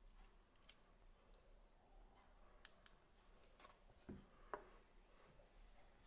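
Near silence, with faint small clicks of tweezers and the metal parts of a rebuildable tank atomizer's deck being handled, then two soft knocks about four seconds in as the deck is set down on a wooden table.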